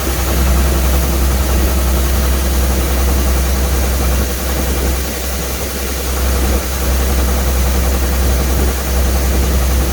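Rice combine harvester's engine running steadily, with a heavy low drone.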